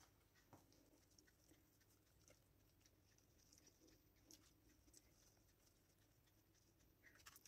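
Near silence: room tone with a few very faint soft ticks.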